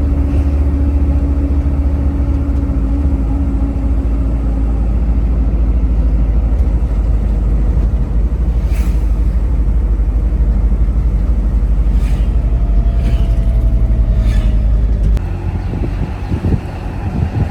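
Vehicle travelling along a road, a heavy steady rumble that eases off about fifteen seconds in, with a few brief knocks along the way.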